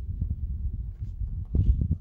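A horse's hoofbeats, muffled thuds on arena footing, over low wind rumble on the microphone, with a louder run of thuds about a second and a half in.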